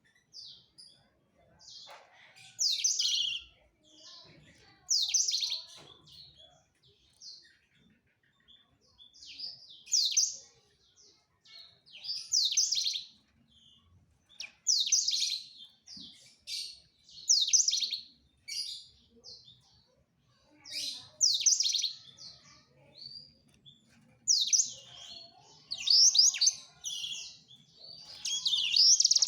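A male blackthroat (black-throated canary) singing to court a female. Short, high twittering song phrases come about every two seconds and run into a continuous warble near the end.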